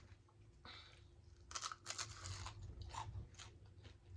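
Crispy fried pinfish crunching as it is bitten and chewed, a run of irregular crunches.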